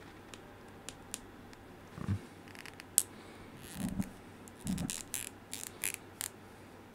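A plastic collectible action figure and its small parts being handled: scattered light clicks and scrapes, with a few soft low bumps.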